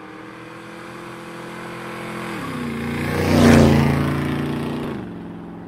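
Motorcycle engine passing by: it grows louder to a peak about three and a half seconds in, then fades, its pitch stepping down twice.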